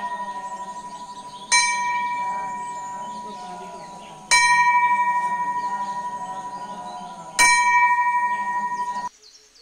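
A bell struck three times, about three seconds apart, each strike ringing with a steady clear tone that fades slowly; the ringing cuts off suddenly near the end.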